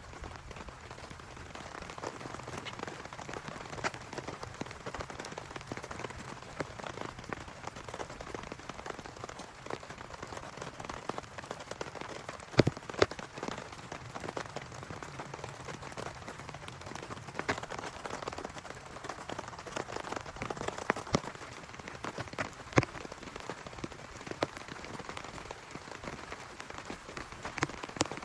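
Heavy rain falling steadily, with many sharp drop hits scattered through it. A few hits stand out louder, the loudest about halfway through.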